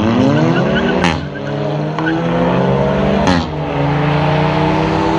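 A car accelerating hard, its engine revs climbing through the gears and dropping sharply at two upshifts, about a second in and again past three seconds. There is a sharp crack at each shift.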